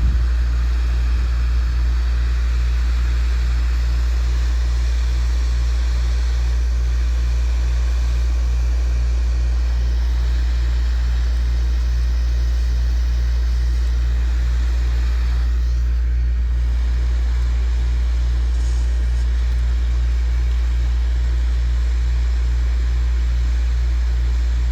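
Hot air rework station blowing steadily while heating a logic board to desolder capacitors: a constant low hum under an even, airy hiss.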